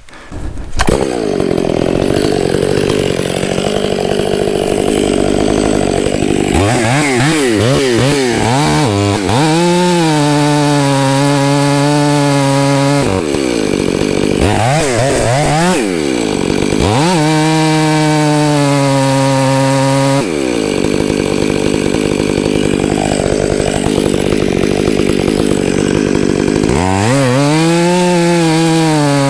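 Chainsaw running through the back cut of a tree, starting about a second in. The engine note drops and climbs again several times as the throttle is eased off and opened.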